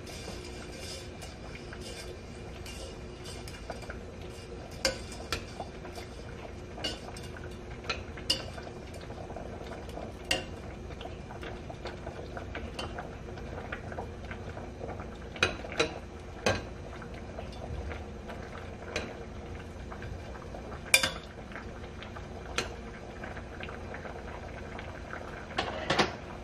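Spaghetti boiling in a pot of water on a gas burner, a steady bubbling hiss, while tongs stir the noodles and knock and clink against the pot about a dozen times, the sharpest clink late on.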